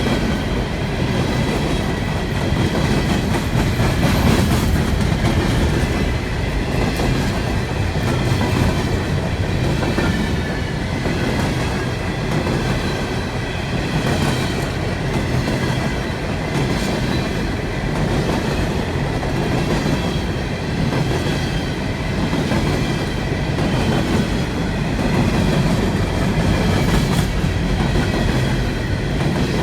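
Long CSX freight train of coal hopper cars rolling past, a steady rumble with wheels clicking over the rail joints and a faint high squeal from the wheels.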